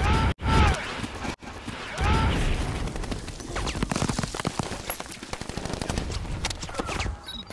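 Film battle soundtrack: a rapid, continuous clatter of gunfire, with deep booms of explosions at the start and again about two seconds in.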